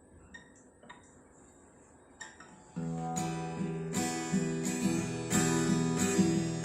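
Acoustic guitar: a few faint clicks, then chord strumming starts about three seconds in and settles into a steady rhythm, growing a little louder.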